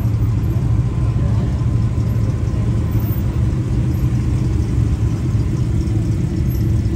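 Silver TVR sports car's straight-six engine running at low revs as the car rolls slowly by, a loud, steady, low exhaust note.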